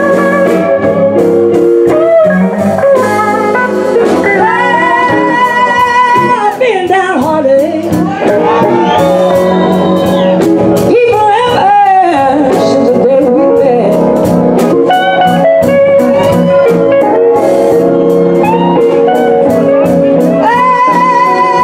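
Live electric blues band playing a slow blues: electric guitars with held notes shaken by vibrato and bent in pitch, over drums, bass and horns, with a woman singing.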